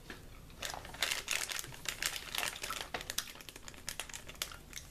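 Plastic snack pouch of Meiji Kaju Gummy crinkling as it is handled: a run of quick, irregular crackles, thickest through the middle.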